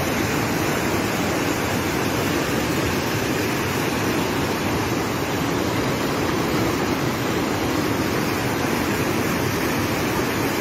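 A muddy river in flood rushing and churning over rocks, a steady loud roar of water.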